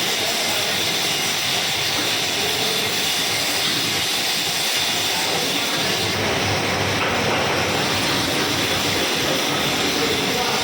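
Metal-turning lathe running steadily, giving an even mechanical noise with no distinct knocks or changes.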